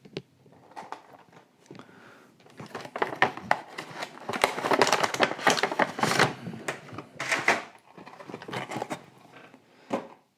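Plastic and cardboard toy-car packaging being opened by hand: irregular crinkling, rustling and tearing, busiest in the middle, with a sharp click near the end.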